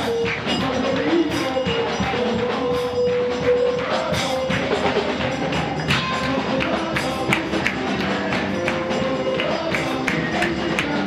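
Live church praise music played to a fast beat, with regular percussion strokes over long held notes.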